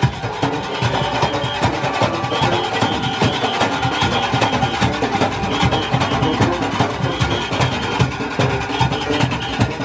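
Live Junkanoo band playing as it parades: hand-beaten Junkanoo drums keep a dense, driving beat under brass horns and saxophone.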